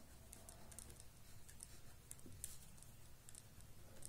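Faint scratching and tapping of a pen tip on paper as words are handwritten: irregular short strokes several times a second over a low room hum.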